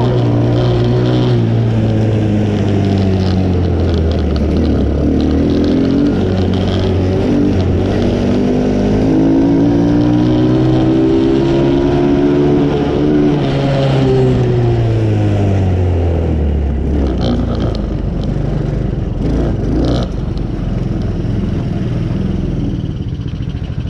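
The 125cc Chinese ATV's small single-cylinder four-stroke engine running with good pep, its revs rising and falling a few times as it is ridden, then dropping back to a steady idle about two-thirds of the way through.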